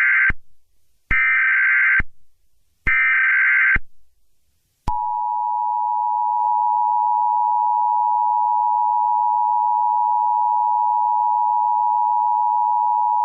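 Emergency Alert System tones: three raspy SAME header data bursts of about a second each, the first already under way. About a second later comes the steady two-tone EAS attention signal, which holds for about eight seconds and stops abruptly.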